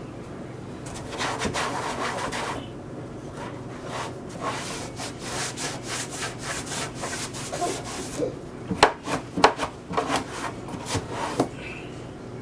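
Damp rag scrubbing grease and oven cleaner off a stove vent hood: a short burst of rubbing, then a long run of quick back-and-forth strokes, with a few sharper knocks about nine seconds in.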